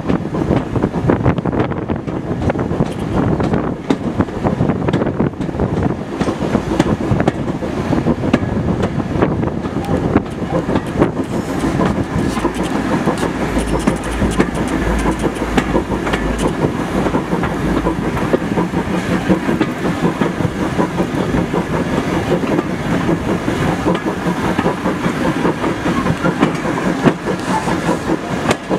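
Heritage railway passenger carriage running along the line, heard from aboard: a steady rumble with wheels clicking and rattling over the track.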